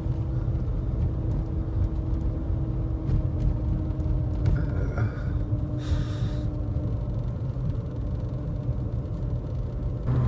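Cabin drone of a Mercedes 300E (W124) straight-six being driven: steady engine and road rumble, with a faint hum that fades out about seven seconds in. The car is running well after its fuel-mixture duty cycle was adjusted.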